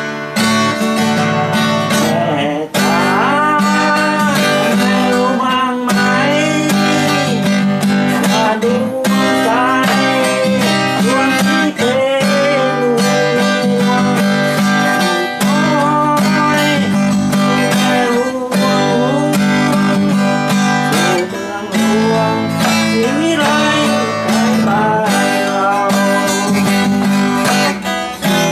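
Cutaway acoustic guitar strummed in a quick, steady rhythm, with a melody line that bends in pitch running over the chords.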